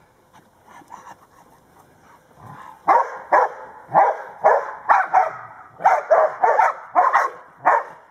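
Old English Sheepdog barking, about a dozen loud barks in quick succession starting about three seconds in.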